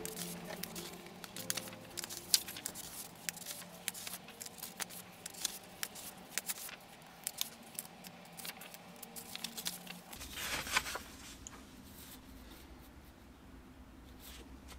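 Sheets of paper being handled and shuffled on a wooden table: a faint run of light ticks and rustles, with a longer swish of paper sliding a little after ten seconds in.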